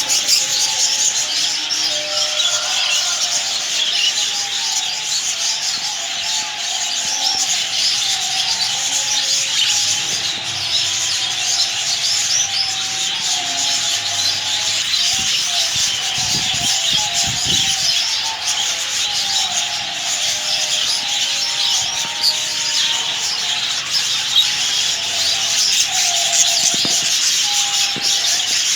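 A dense chorus of many small birds chattering and chirping at once, a continuous scratchy mass of high calls with lower warbling calls running beneath.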